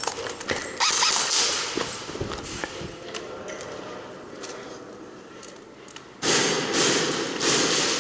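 Indoor airsoft skirmish: scattered sharp clicks and knocks of BB fire and BBs striking walls, with a loud rushing noise that starts suddenly about six seconds in.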